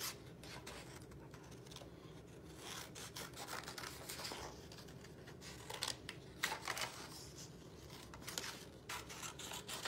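Scissors snipping through construction paper in short, irregular cuts, with the paper rustling as the sheet is turned to follow a curved line.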